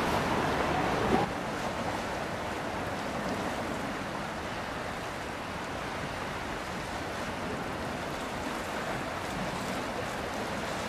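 Steady rush of wind and water, with a louder first second that cuts off abruptly.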